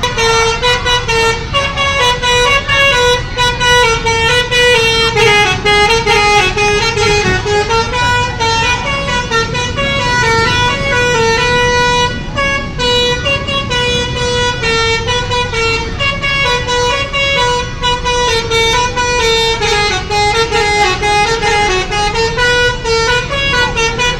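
Telolet basuri musical bus horn playing a melody: several horn tones step quickly from note to note without a break, over a low rumble.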